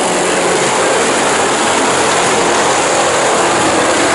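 A pack of dirt-track stock cars racing, many engines blending into one loud, steady din.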